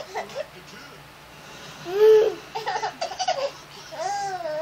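A young child laughing and squealing: a high squeal about two seconds in, a quick run of laughs, then a long squeal that rises and falls near the end.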